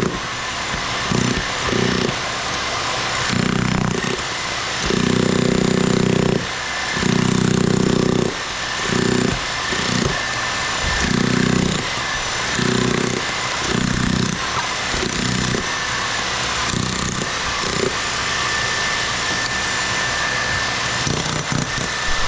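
Demolition hammer breaking up a concrete slab, running in repeated bursts of one to two seconds with short pauses between them.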